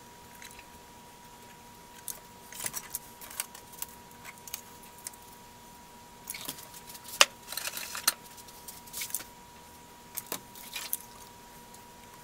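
Metal tools clicking and scraping against a motor terminal block's metal terminals while wires are desoldered from it: scattered clicks and short jangling scrapes, the sharpest click about seven seconds in, over a faint steady hum.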